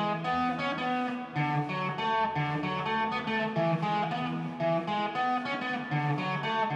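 Electric guitar playing a melodic line of picked notes, one after another.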